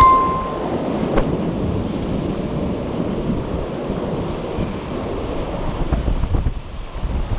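Surf washing over shoreline rocks, with wind buffeting the microphone. Right at the start a short bell-like ding rings out, the sound effect of an on-screen subscribe-button animation, and a single click follows about a second in.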